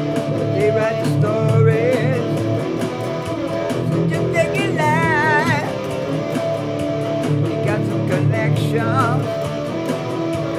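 PRS SE Standard electric guitar played through an amp over a Beat Buddy drum machine's steady beat, an instrumental stretch with a few wavering, bent high notes around the middle.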